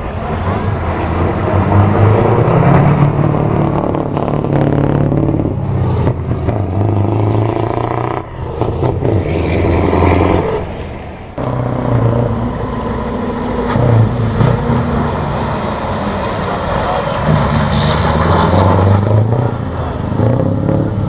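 Scania V8 truck's diesel engine revving up and easing off again and again as the tractor unit is driven hard around an open lot, its pitch rising and falling, with two brief drops in level partway through.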